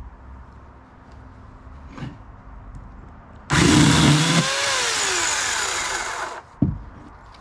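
A small electric chainsaw starts suddenly about halfway through and cuts into a branch. It runs loudly for about a second, then winds down with a falling whine after the trigger is let go. A short thump follows just after.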